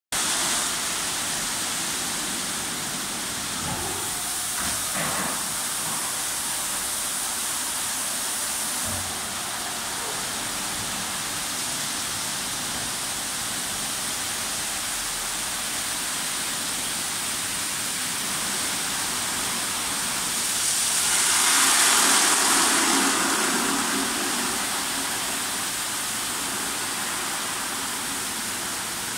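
Rohé California C45 E2 rollover car wash running over a car: its big rotating brush and water jets make a steady hissing wash of spray and bristles. It swells louder for a few seconds about two-thirds of the way through.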